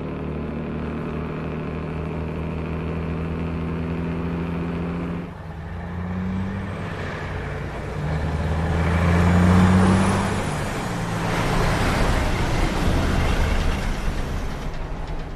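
Peterbilt 281 tanker truck's diesel engine running on the highway. After a cut about five seconds in, it grows louder as the truck approaches and passes, peaking around ten seconds and swelling again a few seconds later.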